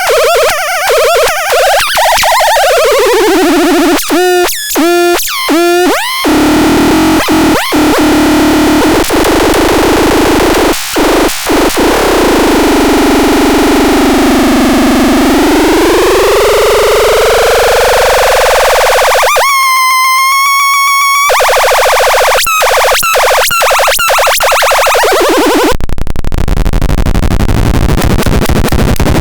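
Loud, harsh electronic noise from a synthesizer-type noise device, full of sweeping pitch glides. A falling sweep comes about two seconds in, then pulsing stutters, a tone that dips and climbs back, a bright buzzing tone about twenty seconds in, and stuttering clicks. Near the end it gives way to a dense hiss.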